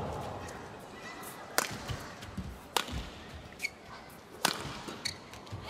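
Badminton rackets striking the shuttlecock in a fast rally: a sharp crack roughly every one to one and a half seconds, three of them louder than the rest, over the low hum of an indoor arena crowd.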